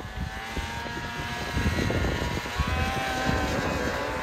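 Ski-Doo snowmobile with three riders on board, its engine running hard at high revs as it speeds across the ice and out onto open water. The engine note bends in pitch and gets louder about a second and a half in.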